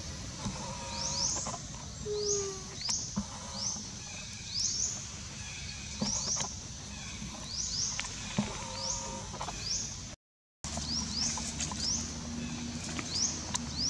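Outdoor wildlife ambience: short, high rising chirps repeating about once a second over a steady high hum. The sound drops out briefly about ten seconds in.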